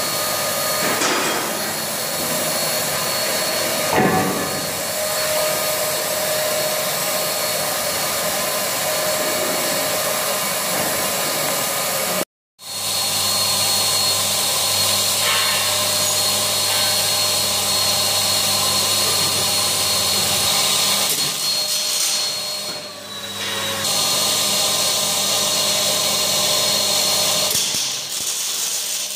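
Hose-fed HVLP paint spray gun running steadily, a motor-like whine with the hiss of air and paint spraying. The sound cuts out for a moment about twelve seconds in and dips briefly twice later on.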